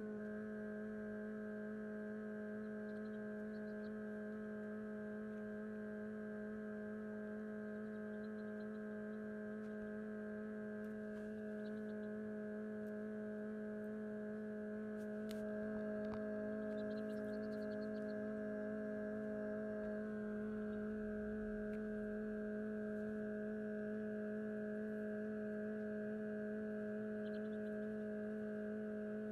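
Steady electrical hum of a small egg incubator running: one low tone with several higher tones above it, unchanging throughout.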